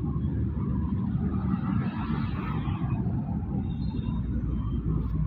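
Street traffic noise: a steady low rumble of road traffic, swelling around two seconds in as a vehicle passes.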